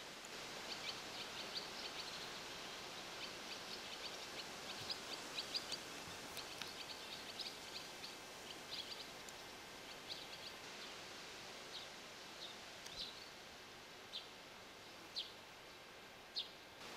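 Swallows calling in short high chirps, in quick clusters for about the first ten seconds, then single calls spaced a second or more apart, over a steady outdoor hiss.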